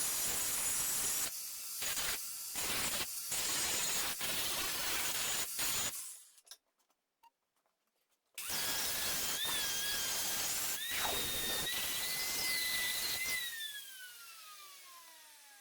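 Arc welding crackle and hiss in stop-start stretches, then, after a short pause, a power tool such as an angle grinder working with a steady whine that rises slightly in pitch and then winds down as the tool spins to a stop near the end.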